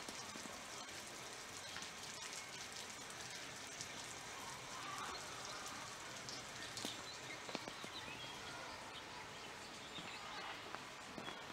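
Faint outdoor ambience: a steady hiss with scattered light clicks and ticks.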